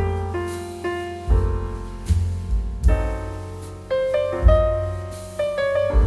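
Background piano music: notes and chords struck one after another, each ringing and fading before the next.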